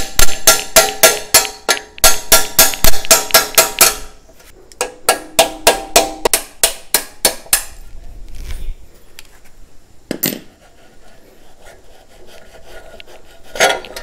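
Rapid, ringing metal-on-metal knocks, about five a second, as the front wheel axle of a Royal Enfield Classic 350 is driven out of the hub. A run of about four seconds, a short pause, a second run of about three seconds, then two lone knocks, one about ten seconds in and one near the end.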